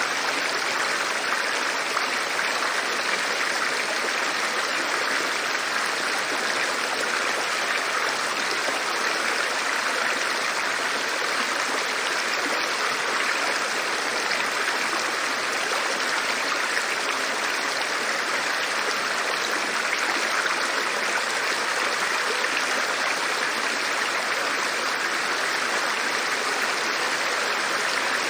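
River water rushing steadily, an even, unbroken sound with no separate splashes or drips.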